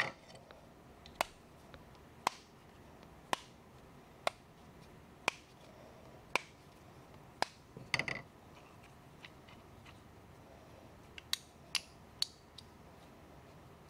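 A plastic-faced mallet tapping on a steel percussion revolver, about eight sharp taps roughly a second apart, as it is being taken apart. Near the end, a few quick metal clicks as the frame and cylinder are handled.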